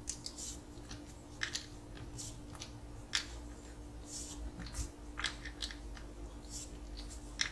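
A small cross wrench tightening a 4 mm locking nut on an RC car's wheel axle: irregular light clicks and scrapes of metal on metal and plastic, about a dozen.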